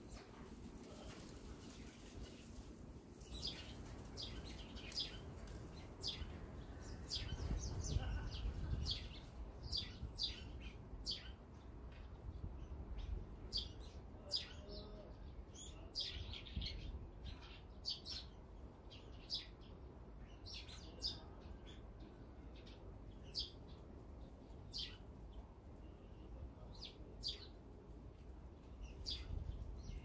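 Small songbirds giving short, high chirps, scattered and irregular, starting a few seconds in, over a low steady background rumble.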